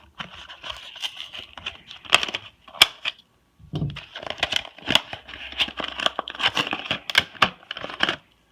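Stiff plastic blister packaging crinkling and crackling as it is worked open by hand and knife, with sharp snapping clicks; it pauses briefly about three seconds in, then carries on.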